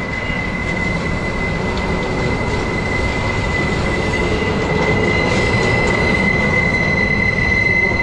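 Union Pacific freight train rolling around a tight curve, its wheels squealing on the rail as one steady high-pitched whine over the rumble of the cars. A second, higher squeal joins about halfway through as the train gets louder.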